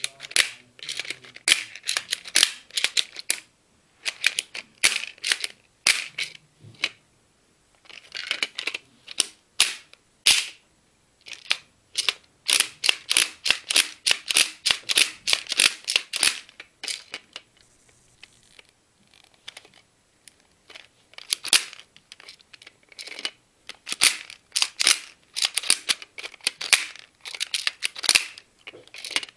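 Sharp plastic clicking in quick runs, many clicks a second, with short pauses between runs: the plastic mechanism of a Beyblaster, a gun-shaped Beyblade launcher, being handled and worked.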